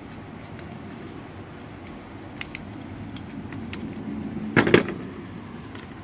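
Plastic car door lock actuators handled and knocked together, giving faint scattered clicks and a brief burst of louder clicks and rattles about three-quarters of the way through, over a steady low background rumble.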